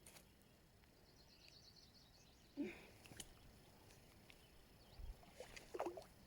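Near silence outdoors, with faint scattered clicks and knocks, a short high rapid trill about a second in, and a soft low thud near the end.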